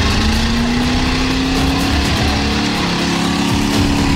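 Ford F-series pickup's engine held at high revs, its pitch creeping slowly upward, as the truck spins its tires stuck in deep mud.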